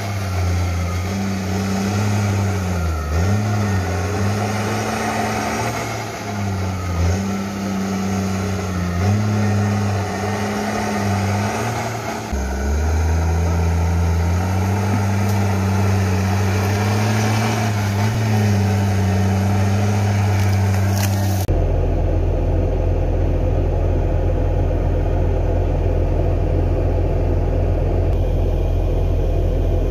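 Crawler tractor's diesel engine working under load as the blade pushes earth and stumps, its pitch dipping and recovering a few times. About two thirds of the way through the sound cuts abruptly to a steady, deeper engine run heard from on board the machine.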